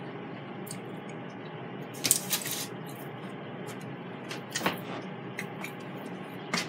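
Steady room noise with two short soft noises, one about two seconds in and a shorter one a little past the middle, while a person chews a bite of food.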